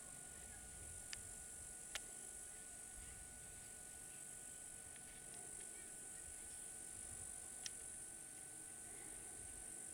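Faint outdoor ambience: a steady high-pitched hiss and patchy low wind rumble on the microphone, broken by three sharp clicks, two close together early and one more late on.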